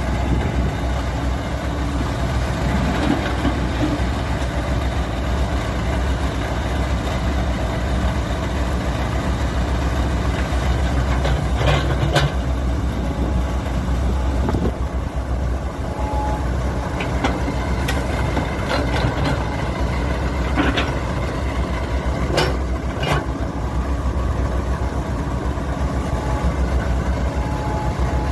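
Earth-moving machine's engine running steadily at a low, even pitch, with a few sharp metallic knocks in the second half.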